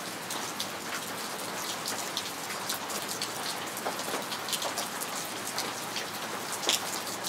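Steady rain falling, with many individual drops ticking close by and one louder drop a little before the end.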